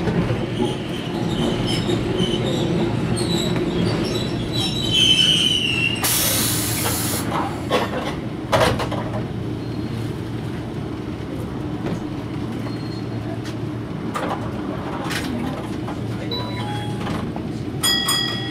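Interior of a Toyohashi Railway 3500-series tram pulling into a stop, with a steady low running hum. A brief high wheel squeal comes about five seconds in and a loud burst of air hiss about a second later as it halts. A few clunks follow, and a short chime sounds near the end.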